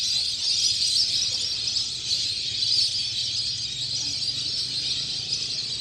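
A large flock of birds calling all at once, making a continuous high-pitched chattering chorus, over a steady low hum.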